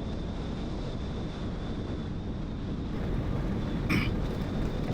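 Wind buffeting the microphone over the steady rumble of a vehicle driving on smooth fresh asphalt, with one brief sharp tick about four seconds in.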